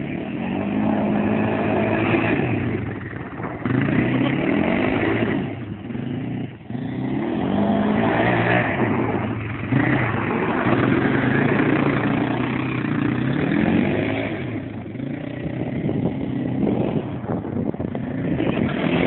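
Bombardier DS 650 quad's single-cylinder four-stroke engine revving up and down over and over as the quad is slid round in circles.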